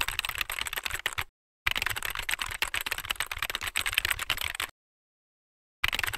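Rapid computer-keyboard typing clicks, a sound effect for text being typed out on screen. Three runs of keystrokes, cut off by dead silence briefly after about a second and again for about a second near the end.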